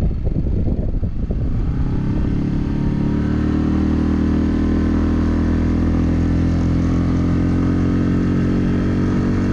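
Mercury F5 M 5 hp single-cylinder four-stroke outboard motor being opened up to push a small inflatable boat away. Its note is uneven at first, then settles into a strong, steady run about three seconds in as the boat gathers speed.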